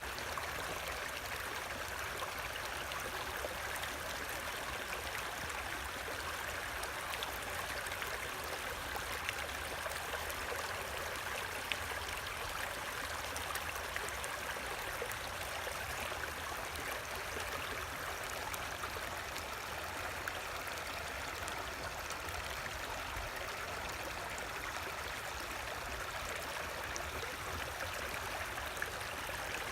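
Creek water running steadily over rocks, a continuous babbling rush with small splashes and gurgles, fed by melting snow.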